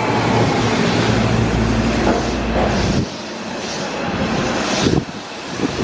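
JR Kyushu 305 series electric train braking to a halt in a subway station. Wheels and running gear rumble under a faint, falling motor whine, and the rumble stops suddenly about three seconds in as the train comes to rest. A short, sharp burst of noise follows near the end.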